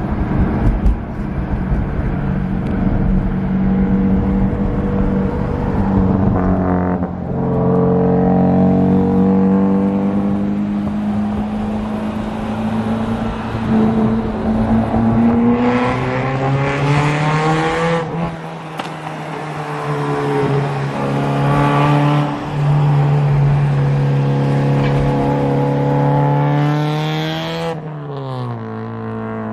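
1991 Mazda Miata's 1.6-litre four-cylinder engine running hard through a short downpipe-to-ISR blast pipe exhaust, its pitch climbing steadily as it pulls through the gears on rollers. The pitch drops at shifts about 7 and 18 seconds in, and falls away sharply near the end.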